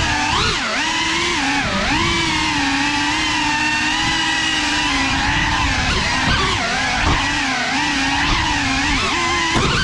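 Brushless motors and ducted propellers of a GEPRC 3.5-inch cinewhoop FPV drone whining, heard from the GoPro mounted on it; the pitch rises and dips with the throttle.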